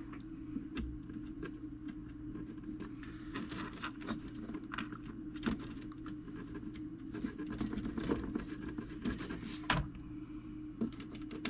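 Light, irregular metallic clicks and scrapes from small parts of a fusee clock movement being handled as nuts are fitted to hold it together, over a steady low hum.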